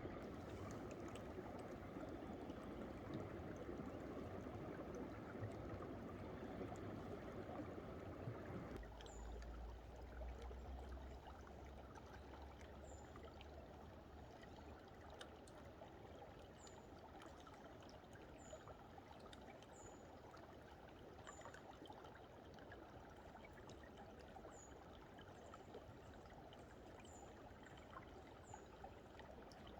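Stream water running under thick ice, a soft trickle and gurgle, louder for the first nine seconds or so and then quieter. Short, faint, high chirps recur every second or two through the later part.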